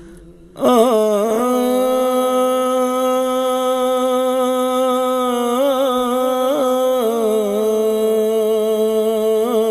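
A man reciting a naat, unaccompanied and through a microphone: after a brief breath he holds one long sung note from about half a second in, with short ornamental wavers in the middle and again near the end.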